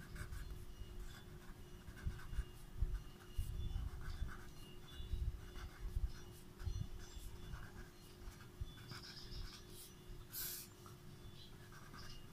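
Red pen writing on ruled paper: faint, irregular scratching strokes with soft low bumps as the formula is written out.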